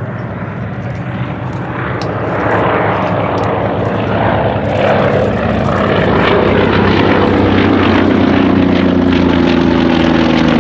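Piston-engined propeller aircraft flying past. The engine note grows louder over the first few seconds, then drops a little in pitch near the end as it passes.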